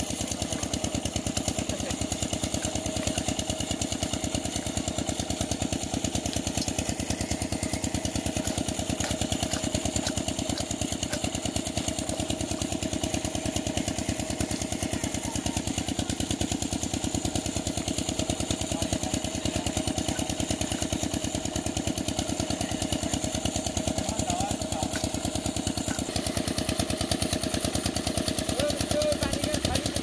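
Small engine-driven water pump running steadily, a fast even chugging with no change in speed.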